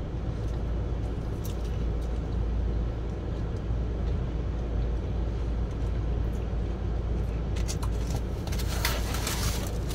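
Car engine idling, a steady low hum heard inside the cabin. Near the end come a few short clicks and rustles from handling the foam takeout box.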